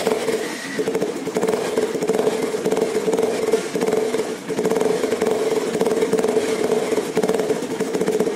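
Bajaj Pulsar 150's single-cylinder four-stroke engine running steadily at the exhaust tip. The tip is fitted with a half-cut tractor air-filter housing as a homemade sound modifier. The engine holds a steady, even hum with a couple of brief dips.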